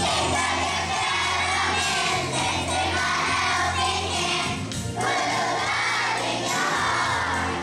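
Children's choir singing over an instrumental accompaniment, with a short break in the singing about five seconds in.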